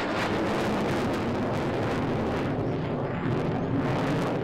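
F-16C fighter jet engine roaring as the jet flies a display manoeuvre overhead, a steady rumble with a rough crackle that grows sharper in the second half.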